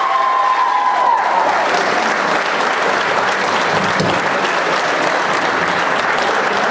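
Wedding guests applauding a toast, with a long cheering voice over the clapping that stops about a second and a half in.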